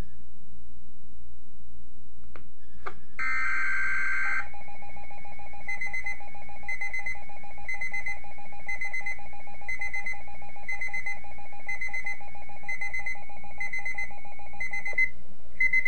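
Weather radio alert signal: about three seconds in, a loud burst of digital data tones lasting about a second, then a steady alarm tone with higher beeps repeating about every two-thirds of a second for some ten seconds. The sequence ends with a single short beep.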